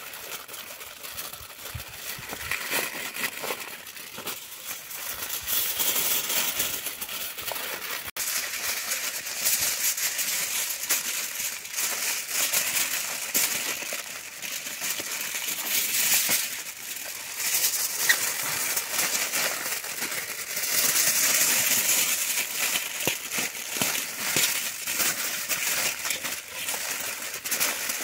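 Aluminium foil crinkling and crumpling as hands fold it over and press it down into a wrapped parcel: a continuous crackling rustle that swells and eases as the foil is worked.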